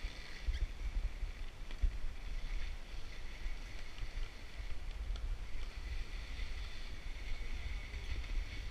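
Mountain bike riding over old, crusty snow, heard through a handlebar camera whose microphone is buffeted by wind: an uneven low rumble throughout, with a steady high hiss and a few light clicks from the bike.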